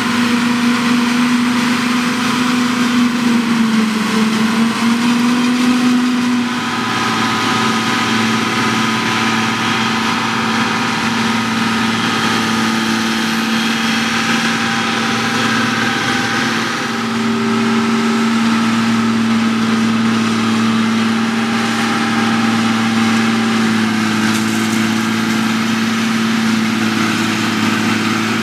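John Deere 6850 self-propelled forage harvester chopping maize: a loud, steady drone of engine and chopping gear, whose pitch sags briefly about four seconds in before recovering.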